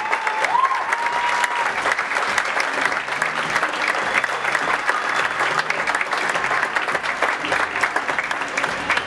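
Audience applauding steadily, with a high cheer held for about a second near the start.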